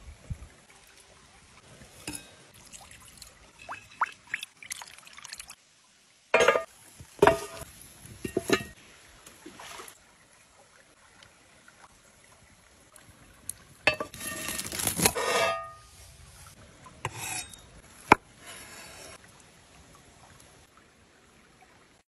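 Close-up sounds of food being prepared and handled in a cast-iron pan: a string of short taps, clicks and soft squelches, with a longer, louder rush of noise about fourteen seconds in and a single sharp click near eighteen seconds, over the faint steady flow of a nearby creek.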